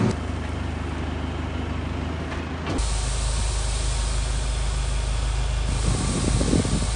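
Tractor engine running steadily. About three seconds in the sound changes to a deeper steady engine hum with a steady hiss over it, heard from inside the cab.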